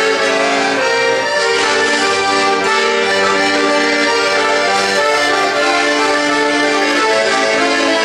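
Piano accordion played solo: reed chords and melody notes, held and changing every half second or so.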